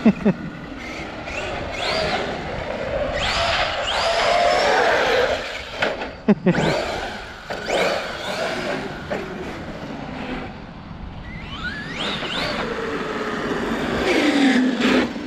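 Castle 1717 1650kv sensored brushless motor in a wide Traxxas X-Maxx RC truck running on 8S, whining up and down in pitch as the truck speeds up and slows, over tyre noise on asphalt. A sharp thump comes about six and a half seconds in.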